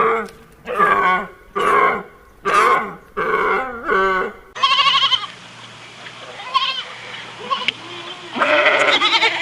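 Bleating: about five short, quavering bleats in quick succession, then a quieter stretch with a few faint calls, and another bleat near the end.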